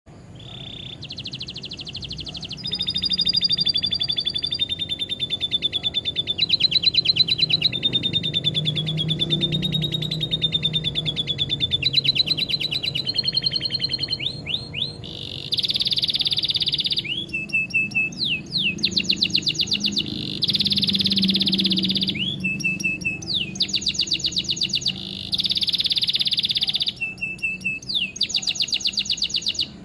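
Domestic canary singing a long song of rapid trills, switching to a new repeated-note phrase every one to two seconds; the canary has learned lovebird-style phrases.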